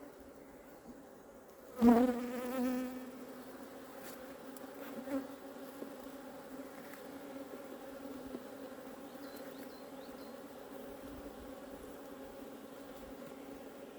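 Honeybees buzzing around an opened hive: a steady hum, with one bee buzzing loudly and briefly close by about two seconds in.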